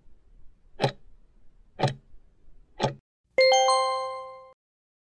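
Countdown-timer sound effect: clock ticks once a second, then a bright chime of several ringing tones with two quick strikes about three and a half seconds in, fading over about a second. The chime marks the timer reaching zero and the answer being revealed.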